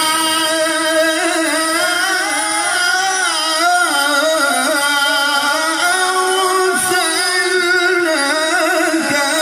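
A male qari reciting the Quran in the melodic tilawah style: one long, high phrase held without a break, its pitch wavering through ornamented turns.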